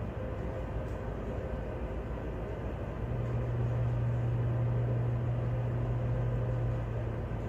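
Tugboat's diesel engines running, heard from inside the wheelhouse: a steady low drone that grows louder and deeper-toned from about three seconds in, then eases back near the end.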